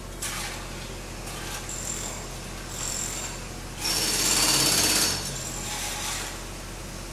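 Pneumatic hammer (jackhammer) hammering in bursts of rapid blows. The longest and loudest burst comes about four seconds in and lasts about a second, over a steady low hum.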